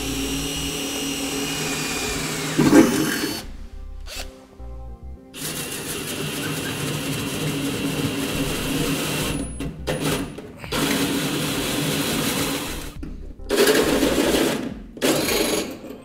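Cordless drill drilling a pilot hole through the steel truck bed wall with a steady motor whine. About five seconds in, a 2 1/8-inch hole saw on the drill starts cutting through the sheet metal in several runs, with brief stops between them.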